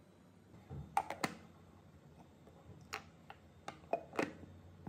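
Several short, sharp clicks and knocks in small clusters as a stainless steel mixer-grinder jar is handled, with its lid set on near the end.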